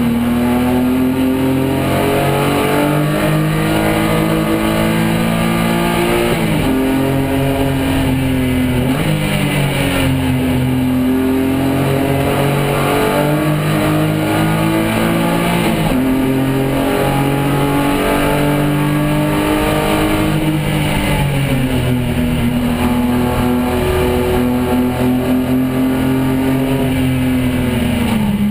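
BMW 328i race car's straight-six engine heard from inside the cockpit at full racing pace. The engine note climbs under acceleration, drops sharply at upshifts and falls more gradually as the car slows for corners, several times over.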